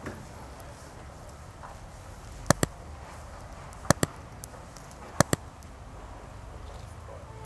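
Three sharp double mouse clicks about a second and a half apart, the click sound effect of a subscribe, like and bell button animation, over a faint steady outdoor background.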